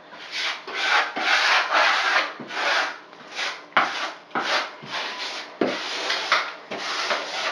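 Hand tool spreading Laticrete liquid waterproofing membrane over wall backer board in quick back-and-forth strokes, about two a second.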